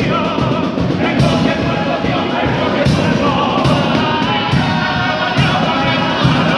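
Carnival comparsa singing in chorus, several voices in harmony over the group's accompaniment, with percussion strokes now and then.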